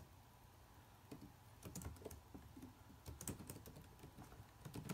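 Faint keystrokes on an HP laptop keyboard, typed in a few short runs of clicks.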